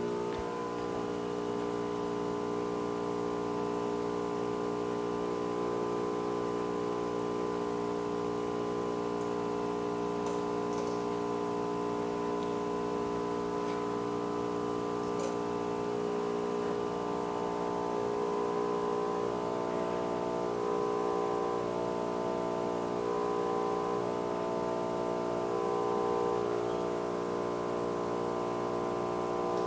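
Soft, sustained background music: held chords that change slowly, with a few faint clicks about a third of the way in.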